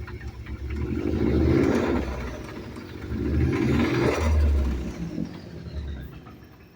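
Ford Focus ST's turbocharged engine revved twice by throttle, each rev rising and then falling back, before it dies down near the end. It runs rough when accelerated, which the owner puts down to a misfire from a bad ignition coil on the third cylinder.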